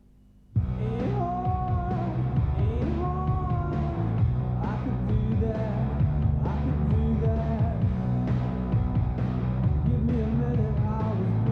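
Music with a singing voice over a band and a steady beat, cutting in sharply about half a second in after a brief silence.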